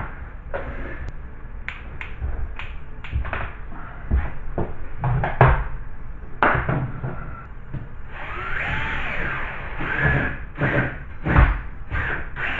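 Power drill boring a hole through wood: irregular knocks and thuds as the bit bites and the drill is shifted, with a steadier stretch of drilling from about eight seconds in.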